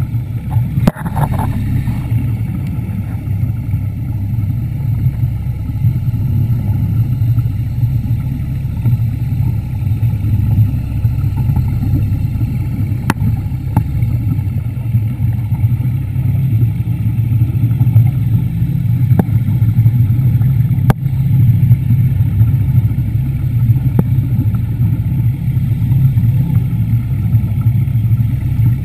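Steady low hum of an underwater scooter's motor and propeller, heard through a GoPro's underwater housing, with an occasional click.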